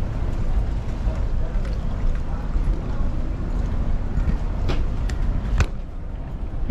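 Steady low rumble of wind and motor noise on a moving boat. A few sharp knocks come about two-thirds of the way in.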